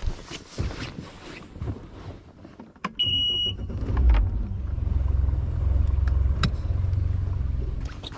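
A short high beep, then a boat's outboard motor starts about three seconds in and runs steadily. Before it there are a few knocks and clicks of gear being handled.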